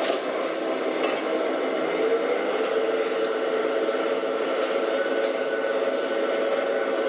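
Kato Techno KS-1000FA metal spinning lathe running: a steady machine drone with held tones, one of which sets in about two seconds in, and a few light clicks near the start.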